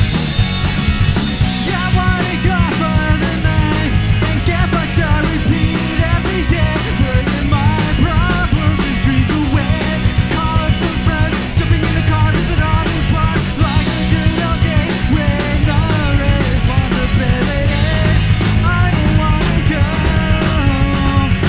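Rock band playing live: electric guitar, five-string bass guitar and drum kit, with a male lead vocal coming in about two seconds in and carrying on over the band.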